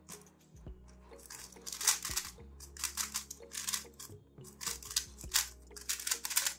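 Magnetic 3x3 speedcube (MoYu WeiLong WR M 2021) being turned fast. Its plastic layers clack and swish in rapid bursts, about eight of them, with short pauses between.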